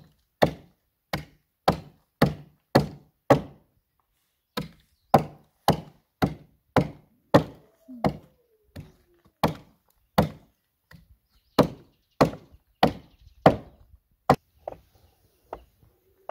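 Axe chopping into a pine log in steady, even strikes about one and a half a second: the vertical scoring cuts made before hewing a roof board. The strikes break off for about a second about four seconds in and turn lighter near the end.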